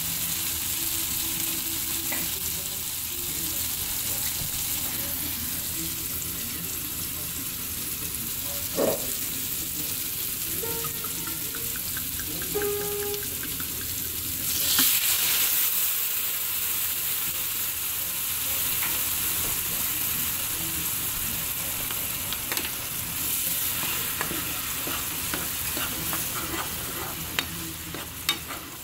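Sliced mushrooms sizzling steadily in a hot nonstick frying pan. About halfway through, white wine is poured in and the sizzling surges loudly for a second or two, then settles. Near the end, a utensil stirs and taps against the pan.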